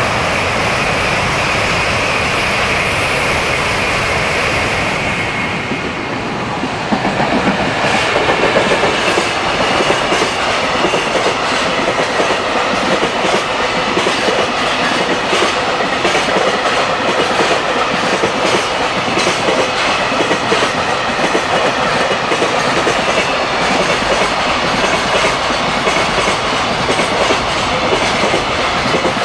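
JR Freight train of container and tank wagons passing close by. From about seven seconds in, the wagon wheels clack steadily over the rail joints.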